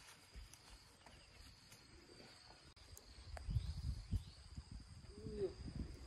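Faint steady high-pitched insect drone, with a few soft low knocks in the second half.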